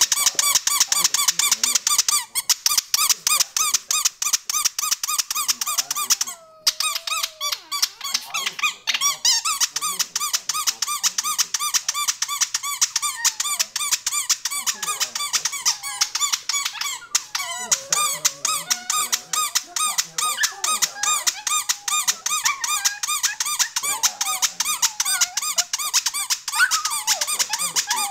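A rubber squeaky toy squeezed over and over in a rapid, steady run of high squeaks, with a couple of short breaks. A dog howls along at times in wavering notes, a little after a fifth of the way in and again through the second half.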